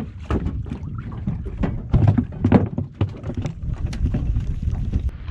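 Small waves lapping and slapping against the hull of a small fishing boat, with irregular small knocks and wind buffeting the microphone.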